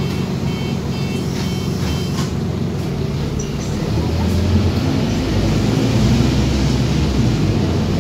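Scania OmniCity double-decker bus heard from the upper deck: a series of short, evenly repeated high beeps for about the first two seconds, typical of a bus door-closing warning, over the diesel engine's low hum. From about four seconds in the engine note grows louder and deeper as the bus pulls away.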